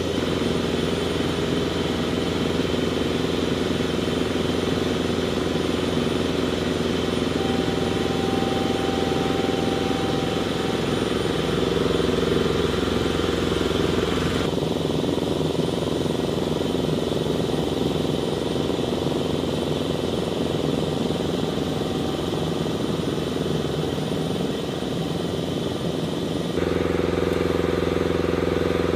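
Engines and ground machinery running steadily on a flight line, a constant low hum and drone. The mix changes abruptly about halfway through and again near the end.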